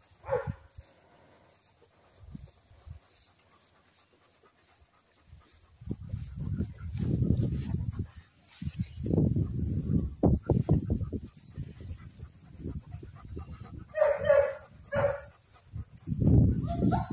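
Steady high insect trilling throughout, under loud low rumbling noise that comes in bursts. Two short pitched cries about fourteen seconds in.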